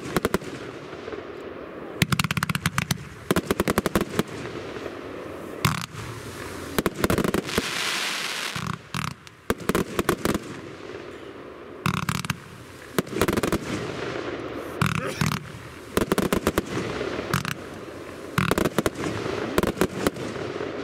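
Elite Event Box Palm Battery W-105 consumer firework cake firing, its shots bursting into crackling stars. It comes in repeated volleys of rapid sharp cracks a second or two apart, with a stretch of hissing about halfway through.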